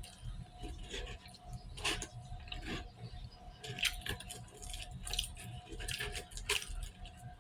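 Close-miked eating sounds: irregular wet clicks, smacks and crunchy chewing strokes, over a faint steady tone.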